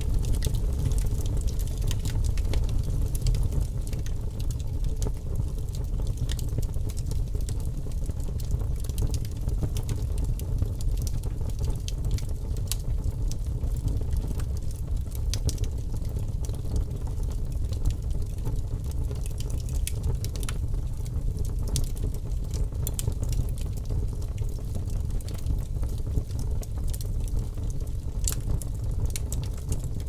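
Wood campfire burning, with frequent irregular sharp crackles and pops over a steady low rumble of flames.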